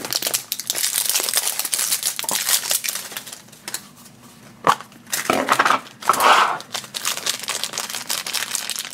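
Crinkly plastic packaging crackling and rustling in the hands as a small plastic blind-bag container is worked open and the plastic bag inside is pulled out, with one sharp click a little before the middle.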